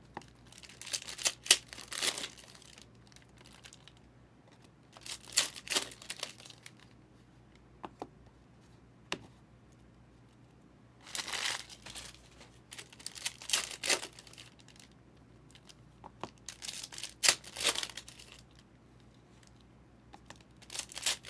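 Trading card pack wrappers being torn open and crinkled by hand, in several separate bursts of crackling with short pauses between.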